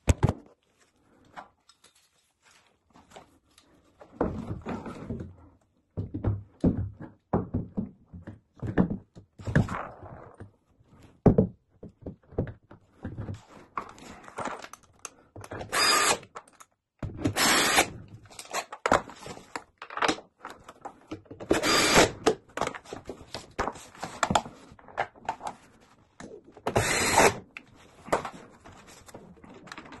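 Cordless drill-driver screwing in a washing-machine motor's mounting bolts, running in four short bursts of about a second each. Between the bursts are clunks and knocks as the motor and bolts are handled against the machine's frame.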